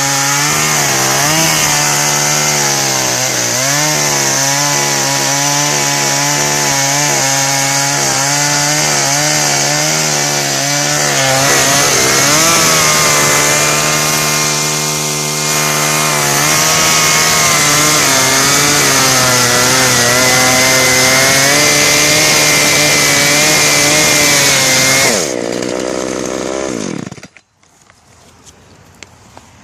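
Husqvarna 142 two-stroke chainsaw with a 16-inch bar, run at high revs and cutting through the trunk and limbs of a felled tree, its pitch wavering as the chain bites. About 25 s in the engine winds down and falls silent.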